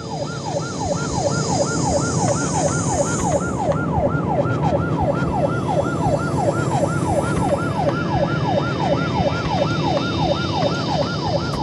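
Police car siren in fast yelp mode: a rapid wail sweeping up and down about three times a second, with the car's engine and road noise beneath.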